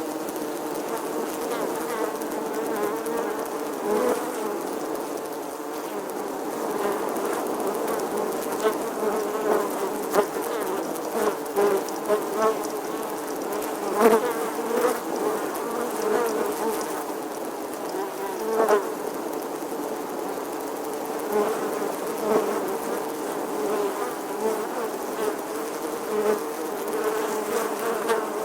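Bees buzzing: a steady, dense drone of overlapping wavering buzzes, with brief louder swells about halfway through and again a few seconds later as bees pass close.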